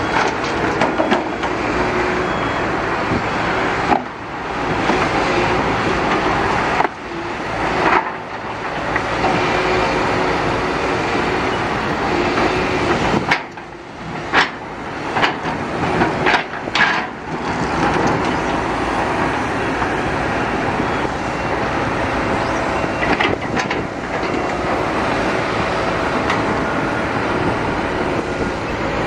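Heavy construction machinery running loudly, steady engine noise with mechanical clatter, broken by several sudden brief drops in level.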